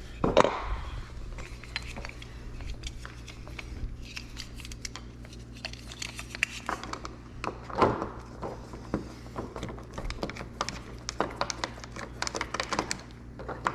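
Screws being backed out of a door lock with a Phillips screwdriver while the lock's metal parts are handled: scattered small clicks, taps and scrapes over a low steady hum.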